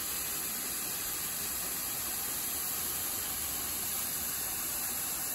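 Steady, even rush of falling water, hissing and unbroken.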